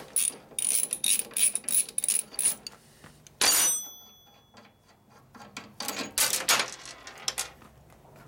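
Socket ratchet wrench clicking in quick repeated strokes as it works a bolt on the brake master cylinder mount. About three and a half seconds in comes one loud metallic clink with a brief ring as a metal tool is put down, then lighter clatter of small parts and tools on a steel workbench.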